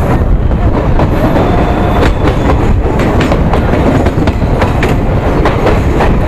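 Passenger train running at speed: a loud, steady rumble with repeated knocks of the wheels over rail joints.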